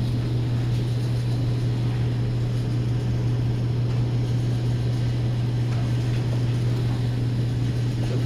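A steady low hum with a faint rushing noise under it, unchanging in level.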